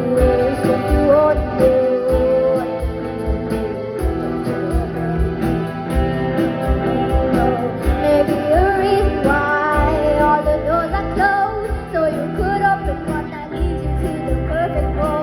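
Live rock band playing, with a female lead vocalist singing over drums, electric guitars and keyboards.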